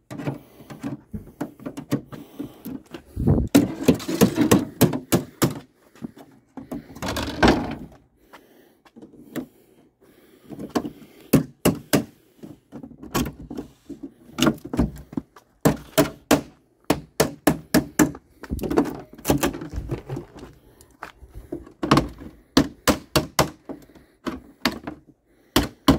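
Metal clips on the lid of a plywood shipping crate being pried loose one after another with a hand tool: a long run of sharp clicks, snaps and knocks, with denser clattering, scraping stretches about three seconds in and about seven seconds in.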